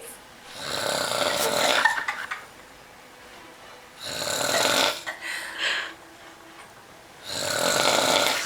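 A drunk man asleep, snoring loudly: three long snores about three and a half seconds apart.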